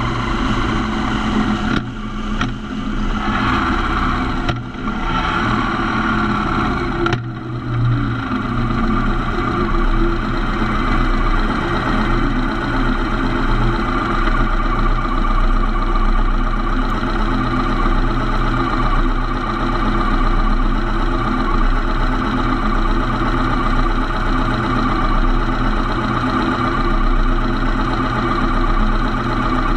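Motorcycle engine running as the bike slows, with a few brief drops in the first seven seconds, then settling to a steady idle at a stop.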